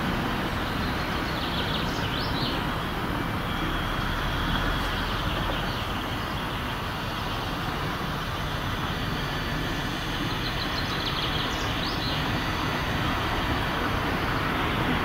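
Diesel shunting locomotive's engine running steadily as the locomotive creeps slowly out of its shed, exhaust smoking from the stack.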